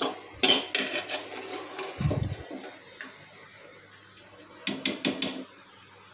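Steel slotted spoon clinking and scraping against an aluminium pressure cooker and a ceramic plate while fried onions are lifted out of the oil. The clinks come in a cluster about half a second in and again around five seconds, with a dull knock around two seconds.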